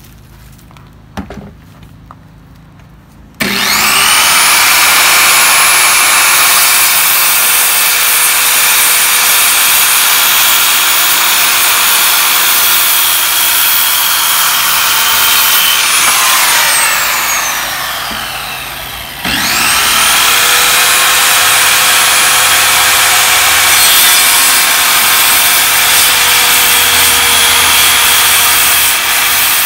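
Corded circular saw cutting a wooden board. It starts with a rising whine a few seconds in and runs steadily through the cut, then winds down with a falling whine about halfway. It starts up again and cuts for the rest of the time.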